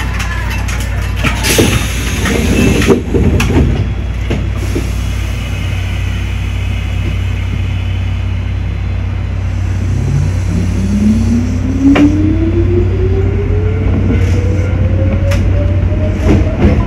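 Mizuma Railway electric train on the move: a steady low running hum with sharp clicks of the wheels over rail joints. From about ten seconds in, the traction motors' whine rises steadily in pitch as the train accelerates.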